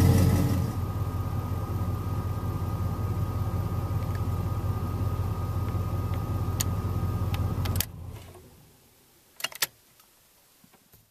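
LS V8 idling steadily through a homemade dual exhaust, quieter after the first second. It is shut off about eight seconds in and dies away, followed by a couple of sharp clicks.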